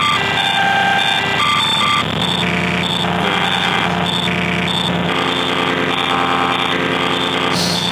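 Harsh, buzzy electronic tones generated live from an image in GIMP by the SoundFumble plug-in, played over loudspeakers: a repeating alarm-like pattern whose pitches change every half second or so, not that pleasant.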